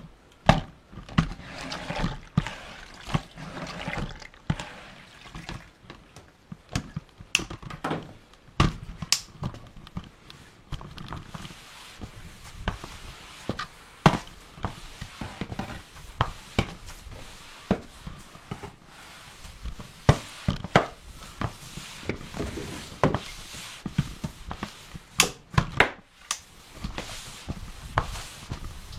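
Flat microfiber mop and its bucket in use: irregular knocks and clacks of the mop head and handle, with water sloshing and dribbling.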